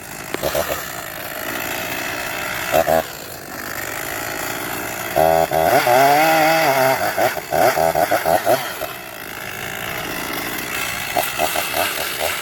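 Gas chainsaw cutting into a pine tree, running steadily and revving loudest around the middle, its pitch rising and falling.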